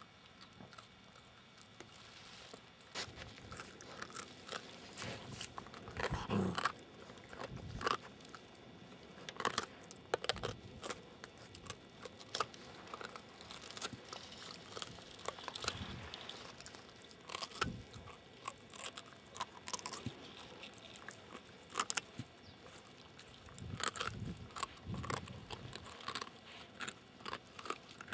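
Samoyed puppy gnawing a raw meaty bone: irregular crunches and bites of teeth on bone and meat, coming in uneven bouts with short pauses between.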